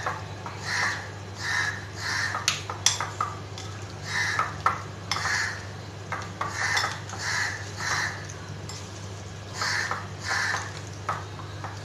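A spoon stirring chunky chicken marinade in a glass bowl, scraping and clinking against the glass with a few sharp taps. A repeated call sounds in runs of about three, over a steady low hum.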